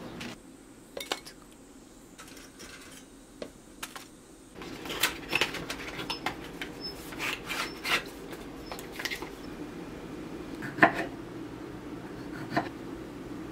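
Kitchen knife work: scattered clicks, taps and clinks of a knife against a glass plate and a wooden cutting board. The taps are sparse at first and busier after about four seconds, with the sharpest knock about eleven seconds in.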